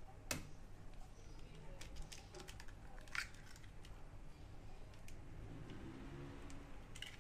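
A hen's egg being cracked against a glass mixing bowl: a few light clicks and taps, the sharpest crack about three seconds in, then the shell pulled open.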